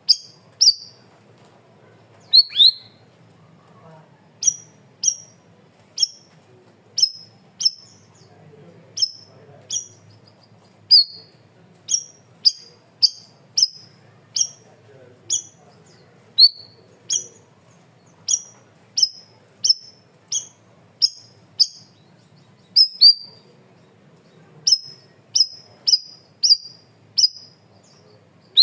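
Cucak rawis (bayeman) songbird giving loud, clear, sharp 'tembakan' calls: short, high notes that drop quickly in pitch, repeated about twice a second. A few lower, slurred notes are mixed in, with a faint low hum underneath.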